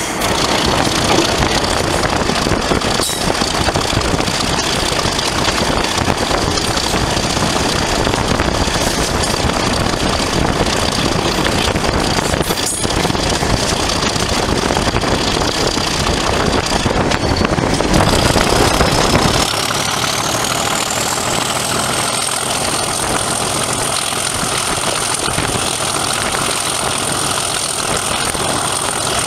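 Class 37 diesel-electric locomotive's English Electric V12 engine working under load, heard from the train just behind it, with a steady high turbocharger whistle. About two-thirds of the way through the whistle climbs sharply in pitch and holds there, while the heavy low rumble drops back.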